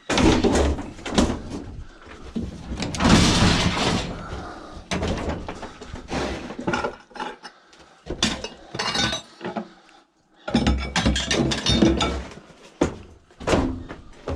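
Small scrap metal items being handled and set down: a run of knocks, clatters and thuds, with a longer rattling stretch about three seconds in.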